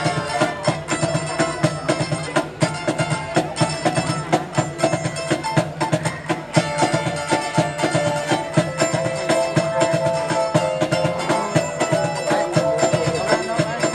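Live band playing an instrumental passage between sung verses: keyboard and guitars over a quick, steady beat.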